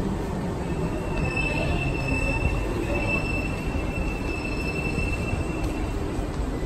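SMRT C151B metro train standing at the platform: a steady high-pitched whine starts about a second in and stops a little before the end, over a constant low rumble of train and station noise.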